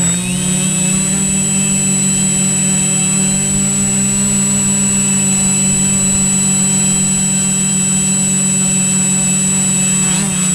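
Drone's electric motors and propellers buzzing steadily in flight, heard up close. The pitch swings briefly at the start and again near the end as the motors change speed.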